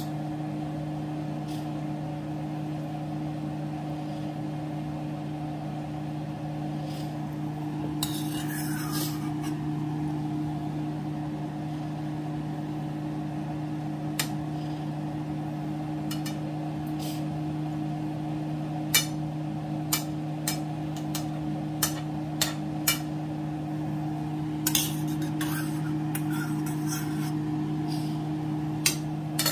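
Steady low hum of a running kitchen appliance, with brief hissing about eight seconds in and again near the end. Sharp clinks of tableware come in the last half, most of them close together.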